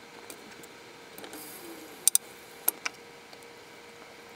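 A thick glass champagne bottle clicking and knocking as it is handled in a sink. There is a short hiss, then a quick double click about two seconds in and two more single clicks soon after.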